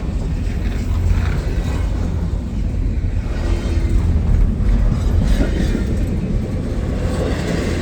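CSX mixed freight train rolling past, its cars making a steady low rumble on the rails.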